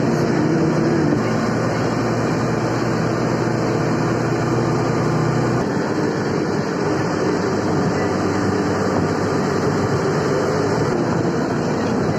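Motor vehicle running along a road, heard from on board: steady engine hum under road and wind rush. The low engine note eases off a little past halfway.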